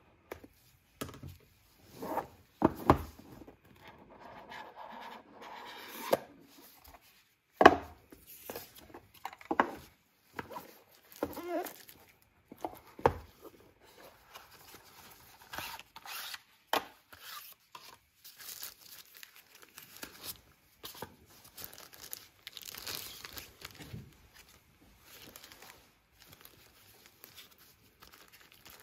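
Unboxing a smartphone: the box's plastic seal being cut and torn, cardboard box parts knocking and sliding, and paper and plastic packaging rustling and crinkling. Several sharp knocks stand out, the loudest about eight seconds in.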